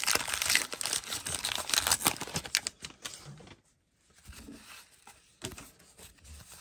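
Paper wrapper of a 1989 Donruss baseball card pack being torn open and crinkled, a dense crackle of small clicks for about three seconds. Then quieter rustling and sliding as the cards inside are handled.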